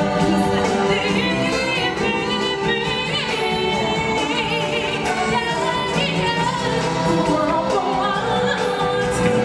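Live stage-show music: a group of singers in choir-style harmony, with a lead voice holding wavering notes over a steady percussion beat.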